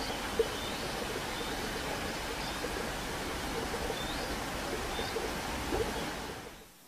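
A steady rushing hiss with a few faint, short, high bird chirps over it and one sharp click about half a second in; it fades away near the end.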